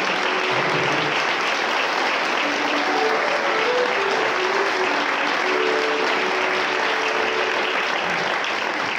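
Audience and choir applauding: many hands clapping in a steady, dense patter.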